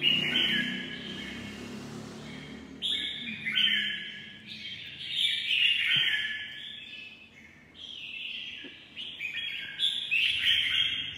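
Caged red-whiskered bulbuls singing: a series of short, warbled phrases with brief pauses between them.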